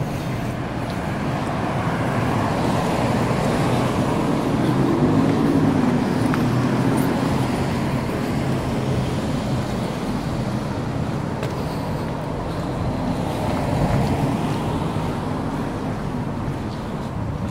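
City street traffic noise: a steady wash of car engines and tyres, swelling a little twice as vehicles go by.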